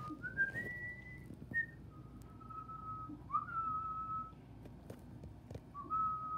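A person whistling a short tune of a few held notes with quick upward slides between them, in three phrases.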